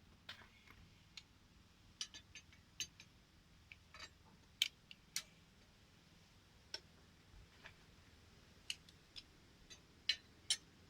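A scattering of light, sharp clicks and taps at uneven intervals, like small parts or tools being handled during work on a vacuum pump. The loudest come a little under five seconds in and again near the end.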